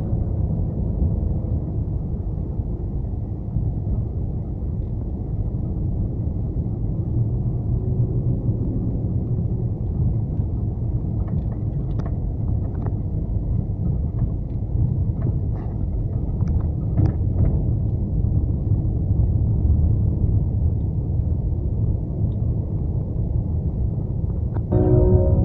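Steady low road and engine rumble of a car driving along a paved road, heard from inside the cabin, with a few faint ticks in the middle.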